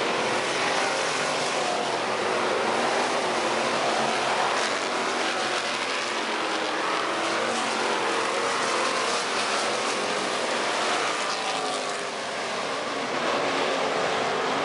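A field of hobby stock race cars running together on a dirt oval, their engines making a steady, dense drone with pitches that waver up and down as the cars circle the track.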